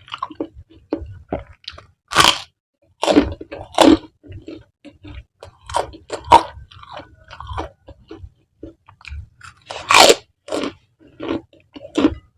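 Close-miked eating of mie nyemek (saucy spicy noodles): irregular chewing and biting noises, with a few loud sharp bites, the loudest about two seconds in and again near the end.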